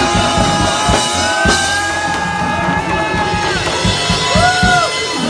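Loud bar music with a steady drum beat and a long held note, then a short rising-and-falling note near the end.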